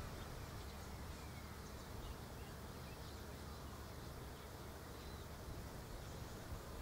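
Steady outdoor background: a constant low rumble under an even hiss, with a few faint, short high chirps.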